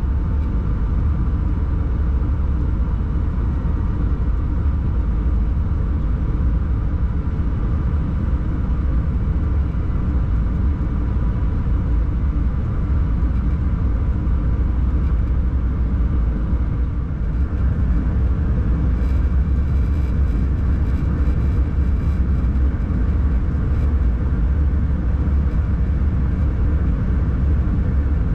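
Cab of an electric locomotive hauling a train at speed: a steady low rumble of the running train, with a faint steady whine. From about two-thirds of the way through, faint rapid clicking joins.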